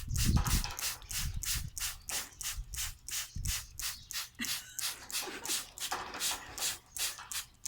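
Rhythmic swishes of spraying or splashing water during a pet cockatoo's bath, about three a second and very even, with a few low bumps in the first two seconds.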